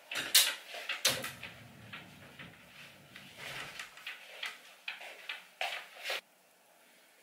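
Handling sounds of getting dressed at a wardrobe: a couple of sharp knocks of the wardrobe door near the start, then rustling of a fleece jacket, clothes and hangers, with a few light clicks and scrapes.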